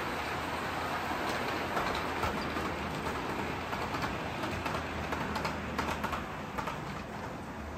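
On30 scale model logging train rolling past close by: a steady running noise with irregular clicks of wheels over the track, easing off slightly near the end as the cars go by.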